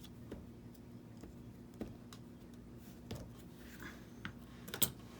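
Light, irregular taps and clicks of paper-crafting supplies being handled on a work table while the edges of a paper piece are inked, with the sharpest click near the end. A faint steady hum runs underneath.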